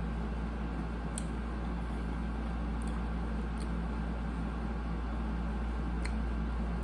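Steady low hum of indoor background noise, with a few faint, short clicks.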